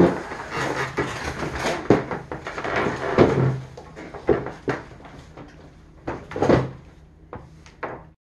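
A string of knocks and bumps from wooden dining chairs being moved and people settling at a wooden table, the loudest knock right at the start.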